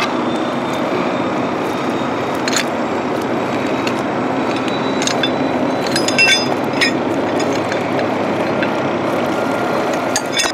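Steady churning of a tugboat engine and river water, with metal chain links and iron rings clinking against each other and the logs as a jammed boom chain is worked loose from a floating log raft; the clinking comes in a few separate clicks, then a quick ringing cluster about six seconds in.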